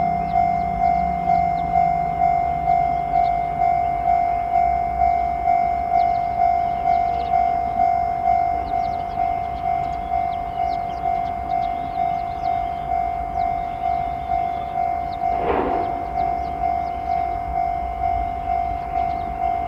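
Japanese level-crossing alarm ringing, a steady electronic ding repeating about twice a second, over a low rumble. A short horn-like blast sounds about fifteen seconds in.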